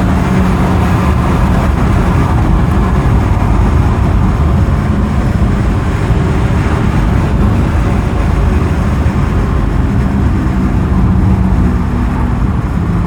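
A car being driven, engine and tyre/road noise heard from inside the cabin, with a steady low engine tone in the first few seconds. This comes during a kickdown test of the automatic transmission, just after it has downshifted to second gear.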